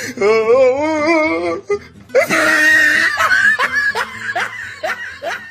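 Meme sound-effect clips played back to back: a wavering, voice-like wail, then a brief shrill noisy burst, then a run of quick laughing bursts, about two or three a second.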